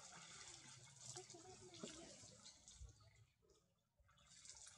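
Faint splashing and sloshing of water as monkeys move and thrash about in a shallow pond, dropping away briefly about three and a half seconds in.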